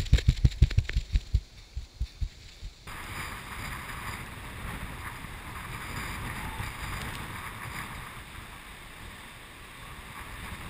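Rapid low thumps, about five a second, from an action camera being jostled as it is carried along, fading out over the first few seconds. After a cut comes a steady rushing hiss of wind on the microphone, with lake surf.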